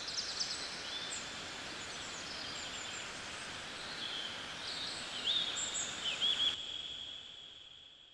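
Outdoor ambience of small birds chirping over a steady hiss. It fades out near the end.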